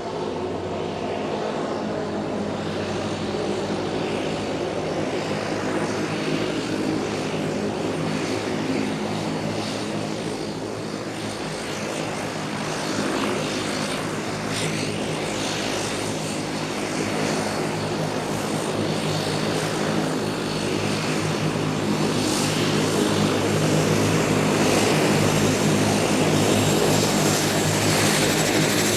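Airplane taking off: its engines run with a steady hum of several tones over a rushing noise, growing louder toward the end.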